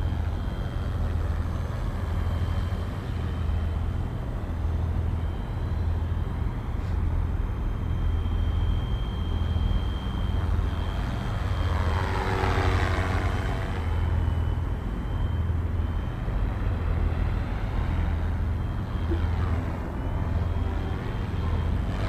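FlyWing FW450 V2 electric RC helicopter flying 3D manoeuvres: a steady high motor whine with rotor noise over a low rumble, swelling with a sweeping pitch as it passes close about twelve seconds in and again near the end.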